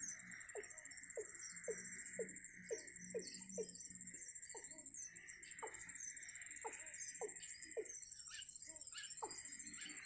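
Reedbed wildlife ambience: a high, steady whine with a buzzing haze beneath it. Over this, an animal repeats a short falling call roughly twice a second, with a few higher chirps mixed in.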